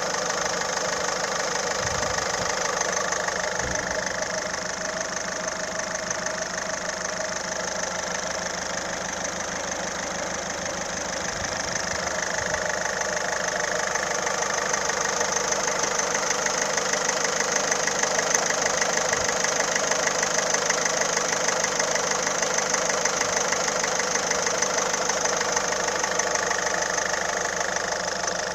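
Citroën C4 1.6 HDi four-cylinder turbodiesel engine idling steadily, its owner unsure whether the sound is normal or a sign of a fault.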